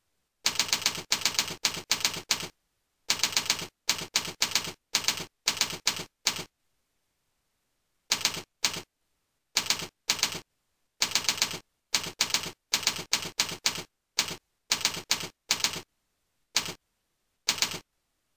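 Typing: sharp clacking keystrokes with a typewriter-like sound, in quick runs of several keys with short pauses between words, and dead silence in the gaps.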